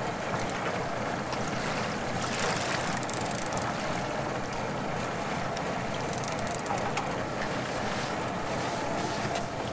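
Steady wind and sea noise aboard a fishing boat at sea, with wind brushing the microphone and a faint low hum underneath; short crackles come about two and a half and six and a half seconds in.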